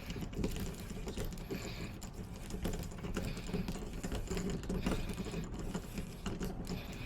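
Quick, irregular light clicking and scraping of a lock pick working the pins inside a door lock during a lockout opening.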